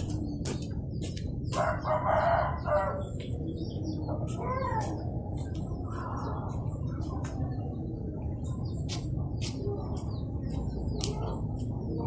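Footsteps walking at a steady pace, about two a second. A rooster crows about two seconds in, and chickens cluck afterwards.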